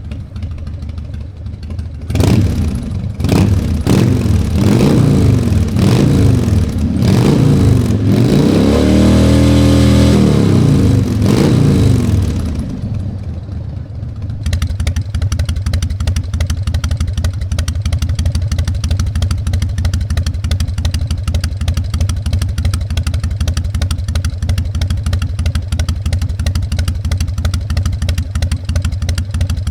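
Harley-Davidson Fat Boy's Evolution 1340 V-twin, fitted with Screamin' Eagle exhaust, revved in a string of quick throttle blips, then held higher for a few seconds before falling away. It then settles into a steady, loping idle, the V-twin's 'potato potato' beat.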